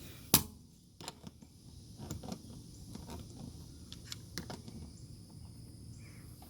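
A sharp click about a third of a second in, then scattered light clicks and scrapes: hand-tool handling noise while a large screw is worked out of a tire tread.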